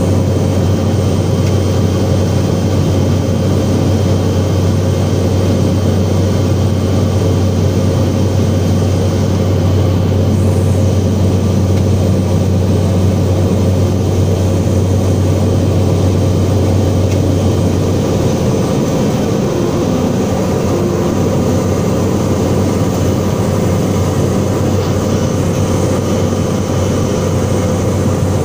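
Light single-engine aircraft's engine and propeller droning steadily, heard from inside the cockpit, with a strong low hum. The aircraft is on approach to land.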